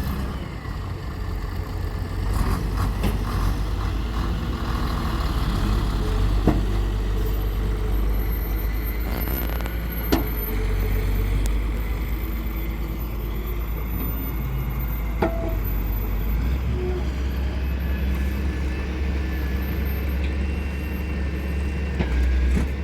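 Heavy diesel engine of construction machinery running steadily, with a few short sharp knocks along the way.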